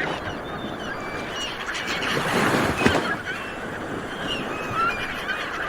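Sea waves washing in with a steady rush while many birds call over them in short, high, sliding chirps; the surf swells louder about two to three seconds in.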